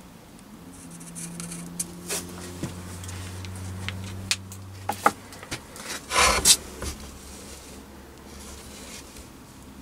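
A steel four-jaw lathe chuck handled on a plywood board: a few light clicks and knocks, and one louder scraping rub about six seconds in as the chuck is picked up and turned over.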